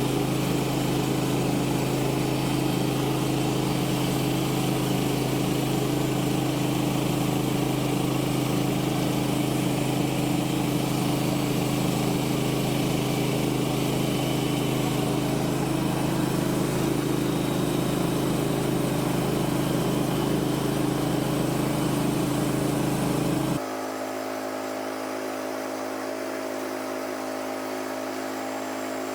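Woodland Mills HM130 Max bandsaw sawmill's gas engine running steadily under throttle during a long cut through a big log. Near the end the sound drops suddenly to a quieter, lower engine note.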